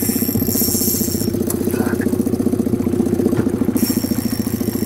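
Boat's outboard motor running steadily at low speed. Twice a high, thin whine rises over it: briefly at the start and again near the end.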